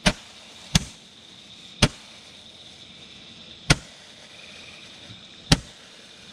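Roman candle firing five sharp pops at uneven intervals of about one to two seconds, each shot launching a burning star.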